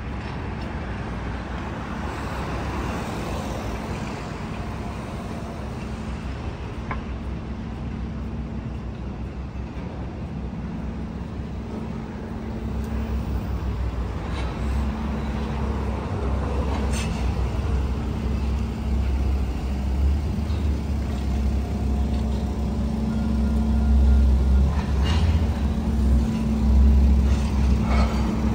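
City street traffic: cars and buses running past with a steady low engine hum, growing louder in the second half.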